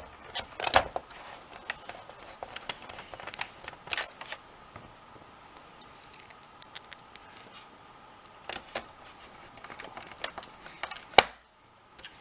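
Irregular clicks, taps and knocks of hard plastic and metal parts being handled as a disc drive is fitted back into a PlayStation 4 console, with the sharpest knocks just under a second in and again near the end.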